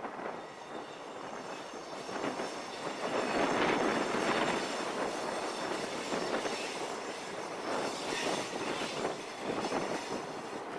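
CN EMD 'Geep' diesel road-switcher locomotives running and rolling slowly past, engine noise mixed with wheel and rail clatter, loudest about four seconds in.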